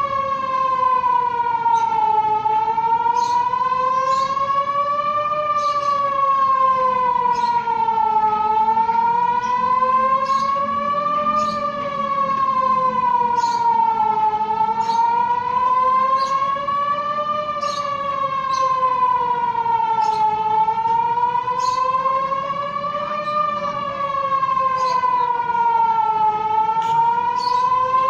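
City emergency public-warning siren sounding a wail in a system test. The steady tone rises and falls slowly and evenly, a full rise and fall about every six seconds.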